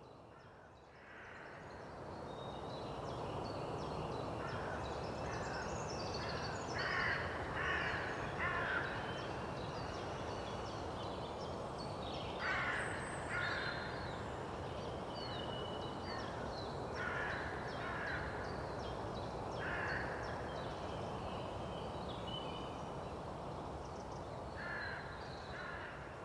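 Crows cawing in short runs of two or three calls, with smaller birds chirping higher up over a steady woodland background hiss. It fades in over the first couple of seconds.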